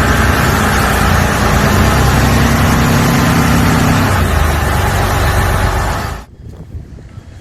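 Large 22,000 cc marine diesel engine of a fishing boat running loud and steady. About six seconds in it cuts off abruptly, leaving a much quieter, uneven low sound.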